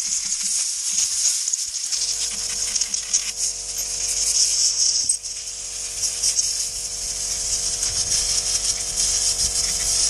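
Compressed air hissing hard from an airline blow gun as a lawnmower carburettor is blown clean; about two seconds in, a steady hum joins it.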